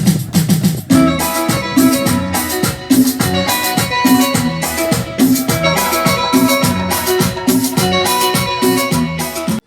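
Dance music with drums and a steady beat, played loud through JBL PA loudspeakers (an SRX 815P and EON 615s) running without a subwoofer.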